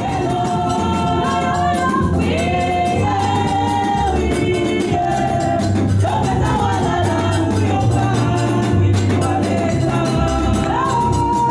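Several women singing a church praise song together through microphones and a PA, over band accompaniment with a steady deep bass line and a fast, even percussion beat.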